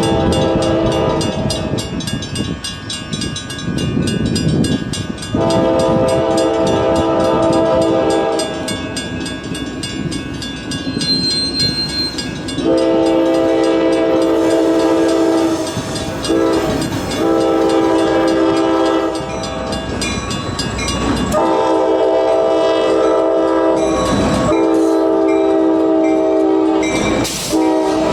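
Nathan K5LA five-chime locomotive air horn sounding a series of long blasts, each chord held for several seconds, with the last few run nearly back to back. The rumble and wheel clatter of a passing train fill the gaps between blasts.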